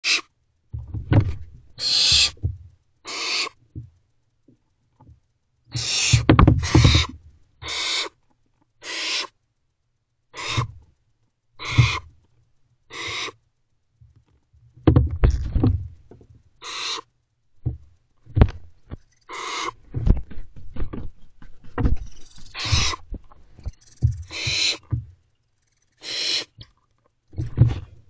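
Barn owlets in a nest box giving rasping, hissing begging calls, each about half a second long, one after another roughly every second and sometimes overlapping. Low thumps and scuffles come from the crowded owlets shoving against each other and the box.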